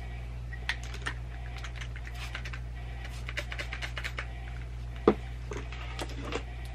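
Plastic trigger spray bottle being pumped in quick strokes, a run of short clicking squirts, some in fast clusters. One louder knock about five seconds in.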